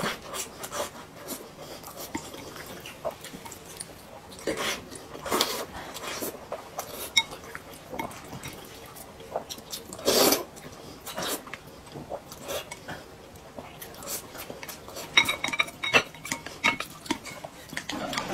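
Chopsticks clicking and scraping irregularly against a small glass bowl as rice and food are shovelled from it, with a few brief ringing clinks of the glass.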